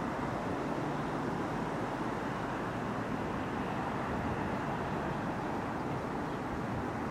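Three-car diesel multiple unit pulling away down the line, a steady distant engine and wheel rumble.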